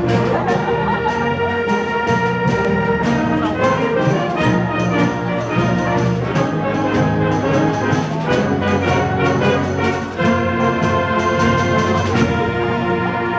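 School concert band playing: clarinets, saxophones and brass holding chords over drum kit and bass drum, with regular drum strikes.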